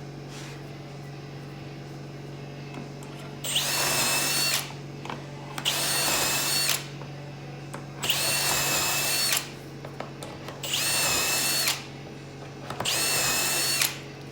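Power drill run in five short bursts of about a second each, its motor whine rising as it spins up and falling as it stops, as when driving screws into cabinet wood. A steady low hum sits underneath.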